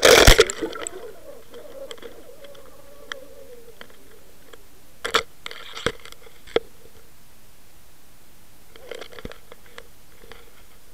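Waterwolf underwater camera splashing into the water, then recording underwater: a wavering gurgle fades over the first few seconds, followed by a few sharp clicks and knocks about halfway through and again near the end.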